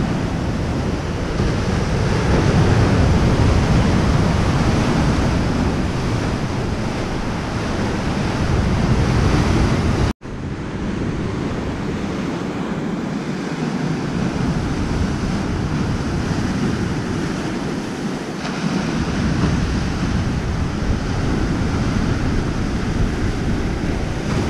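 Sea waves breaking and washing over rocks, with wind buffeting the microphone. The sound cuts out for an instant about ten seconds in, then goes on with less low rumble.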